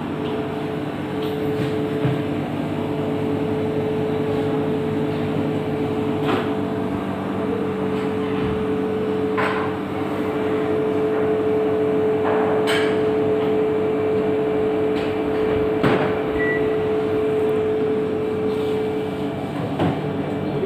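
Steady hum of cooling machinery, holding several even tones, with a sharp knock about every three seconds.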